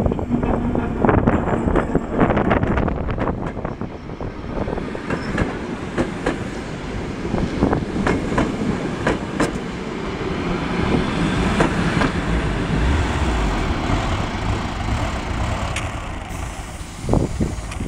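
Passenger coaches rolling past at low speed, the wheels clicking over the rail joints. The clicks come fast at first and then thin out as the train slows to a stop. Two sharp knocks come near the end.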